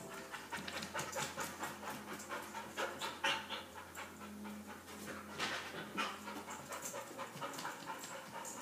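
A dog panting in quick, repeated breaths while left alone, typical of the stress of separation anxiety.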